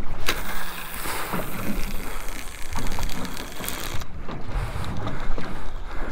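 Wind buffeting the microphone and water noise on a boat at sea, with a sharp knock about a third of a second in.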